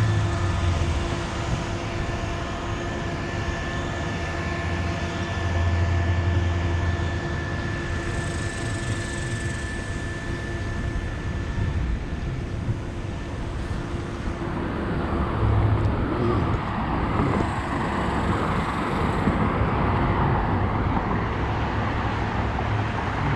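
A steady engine drone held at one pitch, giving way about two-thirds of the way through to rougher rumbling noise.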